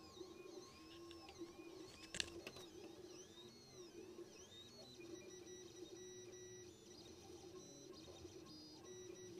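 Faint sound of an FDM 3D printer mid-print: its stepper motors whine in quick rising and falling tones as the head moves, over a steady hum. There is a single sharp click about two seconds in.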